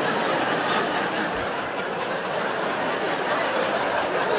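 A large theatre audience laughing, a steady wash of many voices that swells up just before and carries on throughout.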